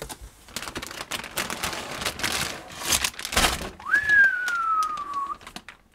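Plastic packaging bags crinkling and rustling as bagged parts are handled in a cardboard box. About four seconds in, a single whistled note leaps up, then slides slowly down for just over a second.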